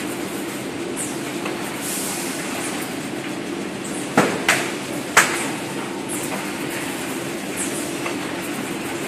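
Automatic cardboard bundling line running: steady mechanical noise from the roller conveyors and strapping machines, with three sharp clacks close together about four to five seconds in.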